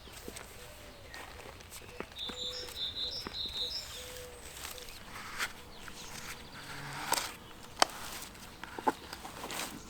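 Scattered light knocks and clicks of plastic lids and end caps being handled and fitted, with a short run of bird chirps about two to three seconds in.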